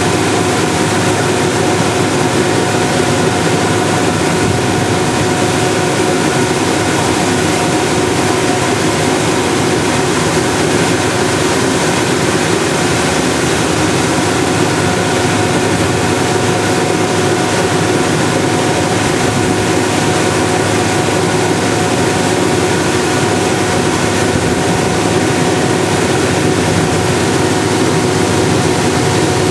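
A river tour boat's engine running steadily under way, a constant drone with a rushing hiss over it.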